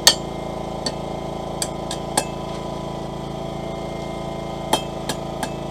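Hammer striking a punch driven into a hot steel bar to knock out the punched slug: a few scattered metallic blows, loud ones just after the start and about three-quarters of the way through, with lighter taps between. The slug is not coming free because a thin film of steel is still holding it. A steady hum runs underneath.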